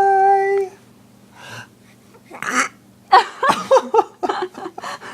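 A baby vocalizing: a loud, steady high-pitched held note that stops within the first second, then breathy huffs and a string of short, wavering syllables, laugh-like sounds that come close to a laugh.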